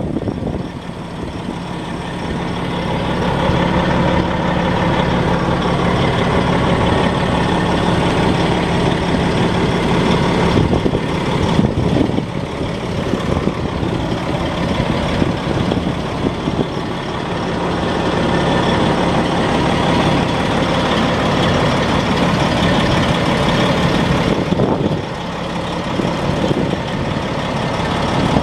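Diesel engine of a 2007 Freightliner Columbia sleeper tractor idling steadily.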